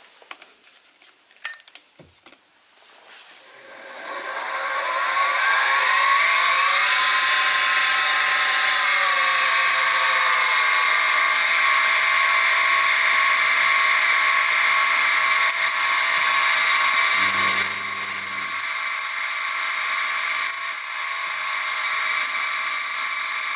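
Sieg SX2P mini mill spindle motor winding up with a rising whine about three seconds in, then running steadily while a 2.6 mm twist drill bores through a mild steel eccentric strap. A thin high squeal from the cut joins in the last few seconds.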